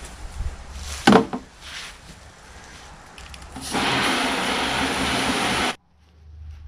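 A single sharp knock about a second in, then water from a garden hose spray wand rushing into a plastic watering can for about two seconds, loud and steady, cutting off suddenly.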